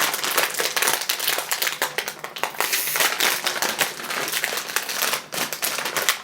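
A potato-chip bag crinkling and crackling continuously as it is handled.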